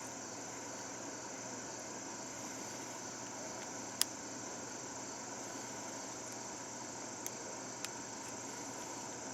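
Steady high-pitched chirring of insects, likely crickets, in the background, with one sharp click about four seconds in and two faint ticks later.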